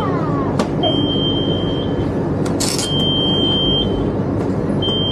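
A tram's door-open warning tone beeps: a single high steady beep about a second long, repeating roughly every two seconds, over the steady hum of the stationary tram. A short hiss of air comes about two and a half seconds in.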